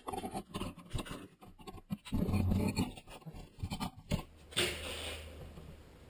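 Work handling noise: irregular light knocks, scrapes and rustles from someone moving and handling a garage door panel. A steady low hum with a hiss comes in about halfway through.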